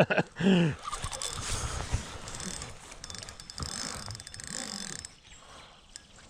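Fishing reel ratcheting and clicking as a hooked fish is reeled in, with a brief voice about half a second in.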